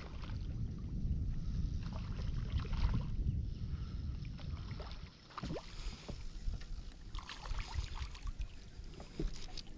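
Wind rumbling on the microphone, easing about halfway through, with small splashes of a hooked crappie thrashing at the surface as it is reeled in.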